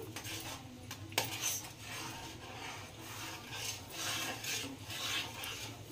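Spatula stirring and scraping around a pan of hot milk as semolina is stirred in to keep lumps from forming: a faint, rasping rub, with a sharper click about a second in.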